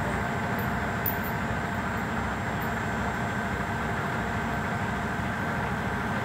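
Semi-truck diesel engine idling steadily, a low, even rumble.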